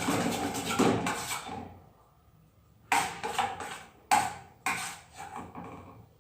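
Kitchen utensils clattering against a pot. After a brief pause come three sharp knocks, each with a short ring-out.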